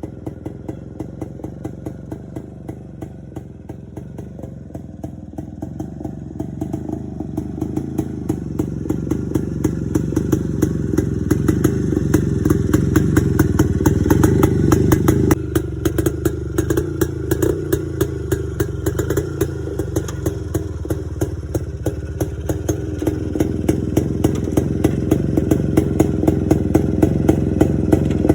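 Modified Yezdi motorcycle engine running through its exhaust, a steady train of exhaust beats. It grows louder over the first half, drops off suddenly about halfway, then builds again near the end.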